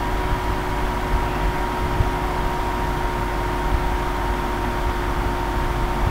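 Steady background hiss with a low hum and two faint unchanging tones, one a high whine and one lower, like machine or electrical noise. There is no distinct event.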